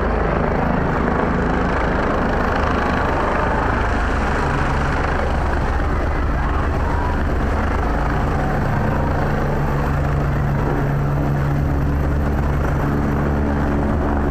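Helicopter running with a loud, steady engine and rotor noise; a low steady hum grows stronger about eight seconds in.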